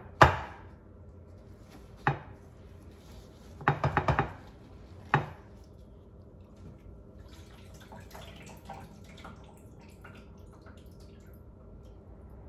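Sharp knocks of kitchen ware striking a hard counter with nothing under it: single knocks, a quick run of four about four seconds in, another soon after, then fainter small clatters and dripping water as water is drained off whole fish.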